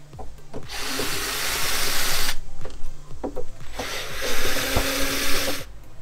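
Cordless drill-driver running in two bursts of about a second and a half each, with a short pause between. It is backing out the screws that hold the factory RV entry-door lock.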